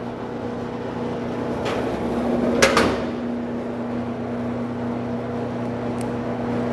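BWS-50SAR electric wire stripping machine running with a steady hum as thick stranded THHN copper wire is fed through it, with a brief louder scraping rattle about two and a half seconds in.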